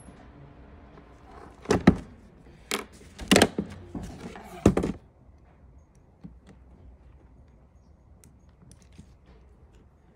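A few sharp knocks and thunks of a part and tools being handled and set down on a workbench, then faint small clicks of hand snips trimming excess rubber from an air duct.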